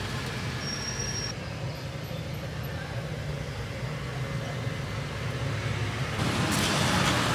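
Low, steady engine rumble of street traffic, growing louder and fuller from about six seconds in.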